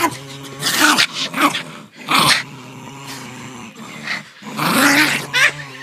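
Small Chinese Crested dog play-growling steadily while wrestling a plush toy, with four louder rough outbursts along the way.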